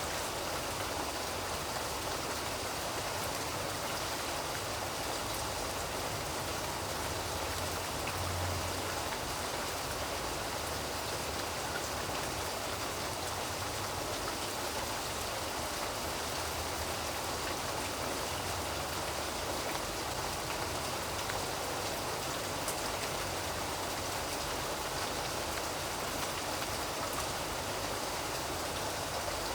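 Steady rain falling, an even continuous hiss with no pauses.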